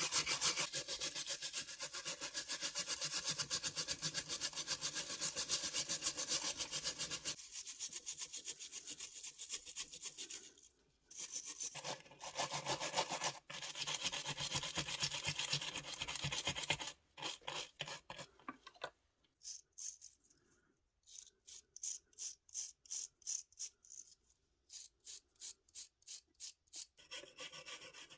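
Hand abrasion on a small diecast model car part: rapid back-and-forth rubbing strokes for the first several seconds, then slower, separate strokes about three a second with short pauses.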